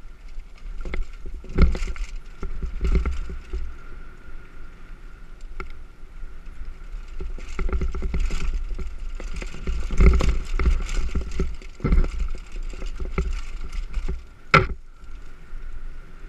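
A Specialized Demo 8 downhill mountain bike riding a rough dirt singletrack, heard from a helmet camera. Irregular knocks and rattles of the bike over bumps come with tyre noise and wind rumble on the microphone, and one sharp, loud knock comes near the end.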